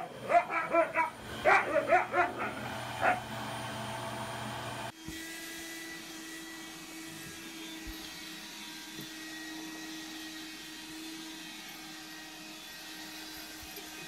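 A husky barks in short, pitched calls over a running upright vacuum cleaner for the first three seconds. About five seconds in, the sound switches abruptly to a handheld vacuum running with a steady hum that holds one tone.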